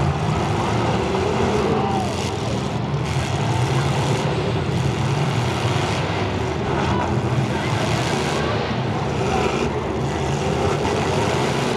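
Demolition derby cars' engines running together, giving a steady, loud engine din with no standout crash.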